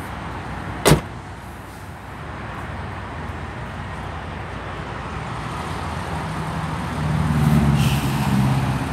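A vehicle door shuts with a single sharp slam about a second in, then steady road traffic passes close by, a passing vehicle's engine swelling loudest near the end.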